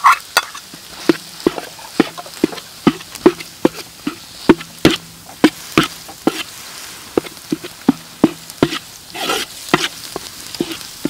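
Metal spatula scraping and knocking against a metal wok in quick, even strokes, about two or three a second, as chopped garlic and brown sugar are stir-fried in oil until fragrant.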